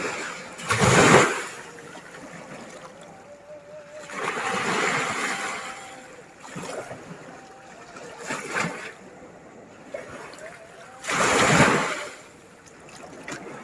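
Sea waves breaking and washing up the shore, each surge swelling and falling away, with a strong break about a second in and another near the end.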